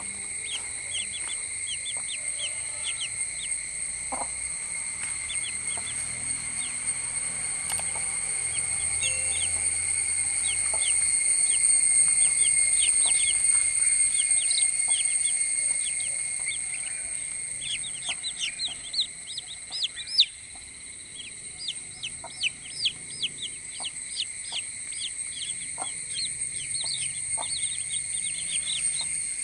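A brood of newly hatched chicks peeping: many short, high chirps, each falling in pitch, coming thick and fast in the second half. A steady high-pitched ringing tone runs underneath.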